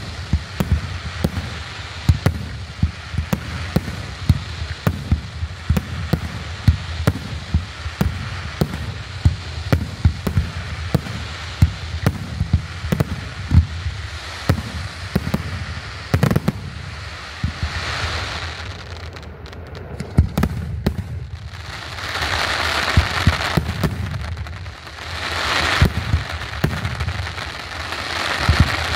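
Aerial fireworks display: a rapid barrage of shell launches and bursts, several bangs a second, for the first half or so. After that the bangs thin out and a hissing crackle swells up three times.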